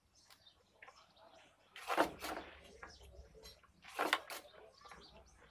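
Toothbrush bristles scrubbed across the solder side of a circuit board while a vertical-output IC is being desoldered. There are two quick pairs of brush strokes, about two seconds apart, clearing molten solder from the pins.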